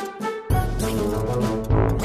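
Background music; a heavy bass line comes in suddenly about half a second in and the music gets louder.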